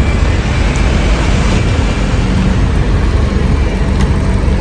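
Water running steadily over the muddy toys as they are washed: a constant loud rushing hiss with no pauses.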